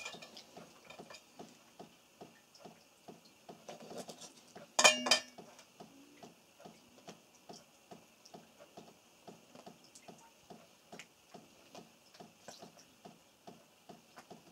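Steady, even ticking at about two ticks a second, with a brief clatter about five seconds in.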